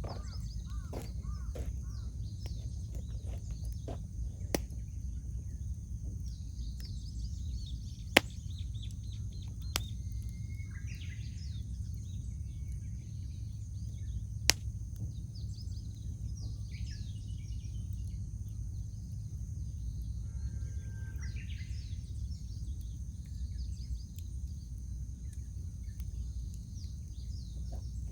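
Wood fire crackling with a few sharp pops, over a steady low rumble. Birds call now and then, mostly in the middle stretch.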